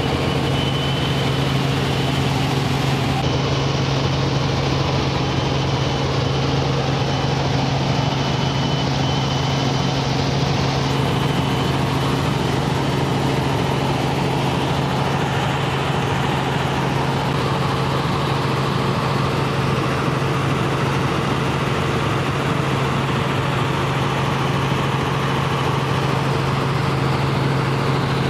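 Helicopter cabin noise in flight: the engine and rotor make a loud, steady drone with a strong low hum. A faint high whine fades out about ten seconds in.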